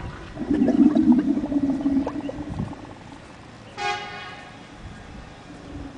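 Camel grinding its teeth: a rough, creaking, whistle-like grating that lasts about two seconds, then resumes more faintly near the end. A brief, higher toot like a horn sounds about four seconds in.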